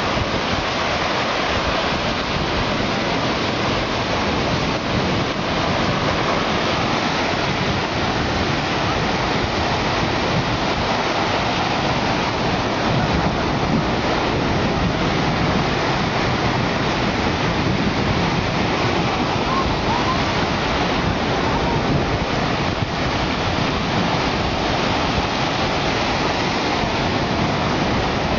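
Surf breaking on a beach: a steady, unbroken rush of wave noise, with wind blowing on the microphone.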